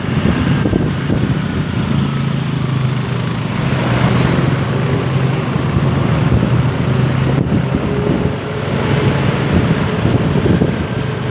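Road traffic: a vehicle engine running with a low steady hum over a continuous wash of road noise.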